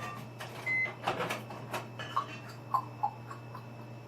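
Microwave oven beeping once at the end of its cycle, a short steady high tone, followed by scattered clicks and knocks as the door is opened and the dish is handled, over a steady low hum.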